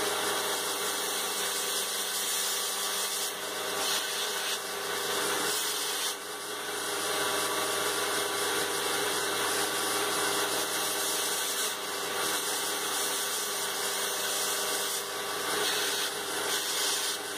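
Electric grinder motor running steadily, with several brief rasping passes as ferrocerium rod ends are pressed to the abrasive to bevel them and grind off the black oxide coating into a gritty key.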